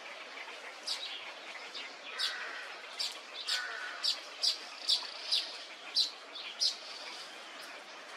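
Birds calling: a run of sharp, high chirps, about two a second, from around two seconds in until near the end, over a steady background hiss.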